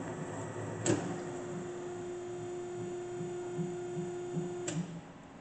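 Royal 918S-V horizontal band saw returning its head to the top at the end of its semi-automatic cut cycle: a click about a second in, then a steady tone over the machine's running noise as the hydraulic cylinder lifts the head, ending with another click near the end, after which the machine goes quieter.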